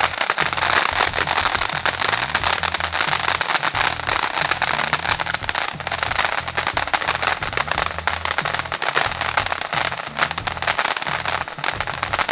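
A crackling firework sputtering in a dense, continuous stream of rapid small pops, over background music with a repeating bass line.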